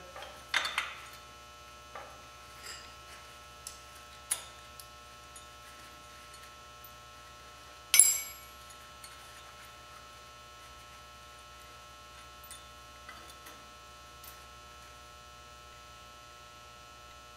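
Scattered metallic clinks and taps of hand tools on the steel engine stand and its bolts, with one sharp clank about eight seconds in, over a steady electrical hum.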